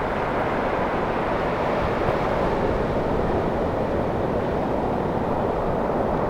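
Steady, even noise of ocean surf, waves breaking and washing without pause.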